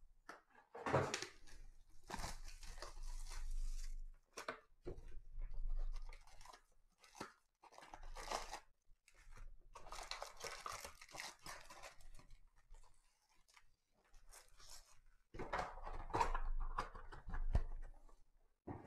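Foil trading-card packs crinkling and cardboard card boxes rustling and tearing as they are handled. The sound comes in irregular bursts with short pauses between them.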